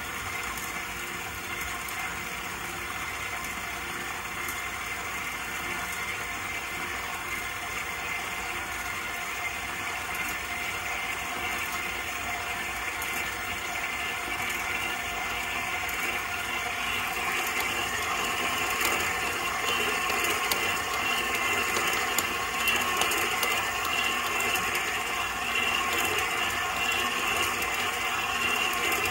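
KitchenAid Professional 6500 stand mixer running steadily, its motor and gearbox driving a dough hook through flour and pizza dough in a glass bowl. It grows louder and brighter in the second half.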